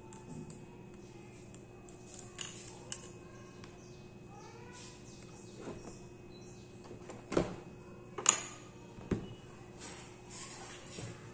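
Small clicks and light knocks of hands taking apart a laptop's underside: removing its small wireless card and setting parts down on the work mat, with three sharper knocks between about seven and nine seconds in. A low steady hum runs underneath.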